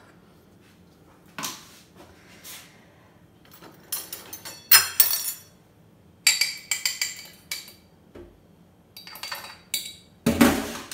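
Metal utensil clinking and scraping against a small dish in irregular bursts, loudest a little before halfway and near the end, as the reserved egg yolk is stirred for glazing the pizza crust.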